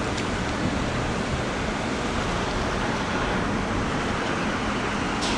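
Steady rushing noise of typhoon wind and rough sea, with no let-up.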